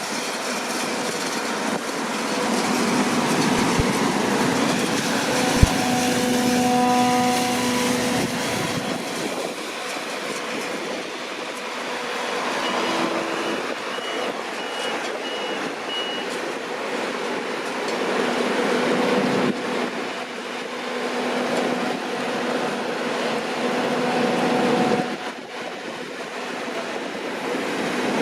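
Deutz-Fahr C9306TS combine harvester running loud and steady while working. A run of about six short, high, evenly spaced beeps comes about halfway through.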